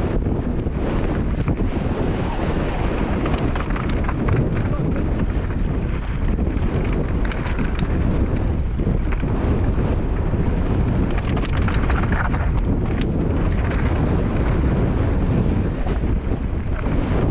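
Strong wind buffeting a GoPro action camera's microphone during a fast mountain bike descent, with tyres running over the dirt trail and frequent short clattering knocks from the bike over rough ground.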